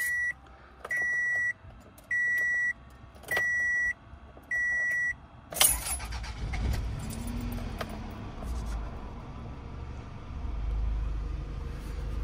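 2003 Toyota RAV4's dashboard warning chime beeping four times at one steady high pitch, about once a second. About five and a half seconds in comes a sharp clunk as the four-cylinder engine starts, then the engine runs with a low steady idle.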